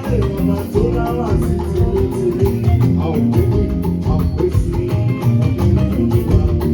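Choir music with band accompaniment: an upbeat, steady dance rhythm with drums and bass under singing voices.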